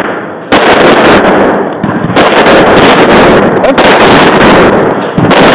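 Several loud gunshots on a covered firing range. Sharp reports come about half a second in, near two seconds and again at the end, each overloading the microphone and trailing off in a long echo under the roof.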